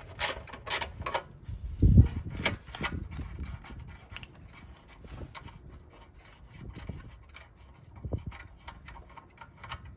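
Hand tools and the minibike's gas-tank mounting bolt being handled: scattered metallic clicks and taps, with one dull thump about two seconds in.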